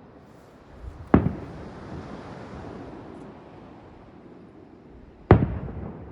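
Two fireworks shells bursting about four seconds apart, each a sharp bang followed by a rolling echo that fades over a second or two.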